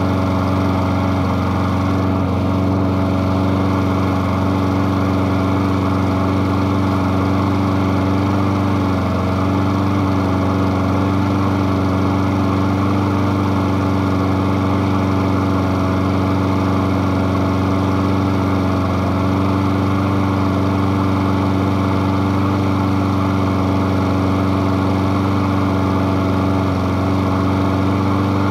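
Honda engine on a walk-behind lawn mower, running steadily at a constant speed.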